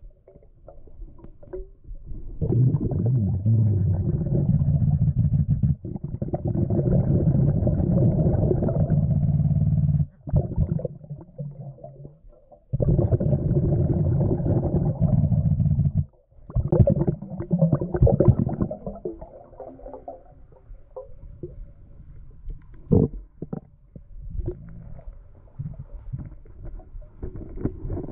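Muffled underwater rumbling and gurgling of a diver's exhaled air bubbles, in long stretches of several seconds with short quiet breaks between breaths, then choppier rumbling with a few knocks near the end.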